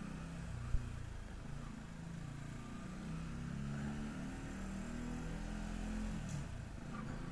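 Benelli motorcycle engine running at low speed, its pitch rising and falling with the throttle, with a single sharp knock about a second in. It is heard muffled through a camera's waterproof housing.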